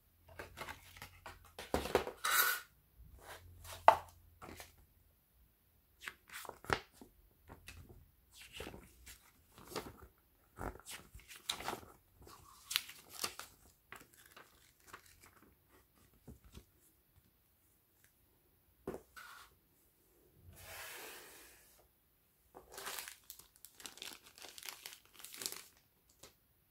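Handling noise of cardboard packaging and paper: a phone box's cardboard insert and a printed manual are moved and leafed through, giving irregular rustling and crinkling with short sharp taps. The loudest tap comes about four seconds in, and there is a longer rustle a little past twenty seconds.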